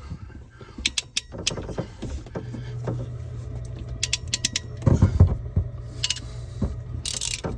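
Plumbing fittings being handled under a sink: scattered sharp clicks and knocks as an inline shutoff valve and its supply hose are worked into position. A low steady hum runs underneath from about a third of the way in.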